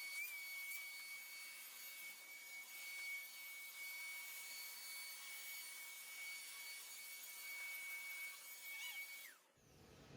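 Small electric motor running with a steady high whine and hiss, then winding down in pitch and stopping shortly before the end.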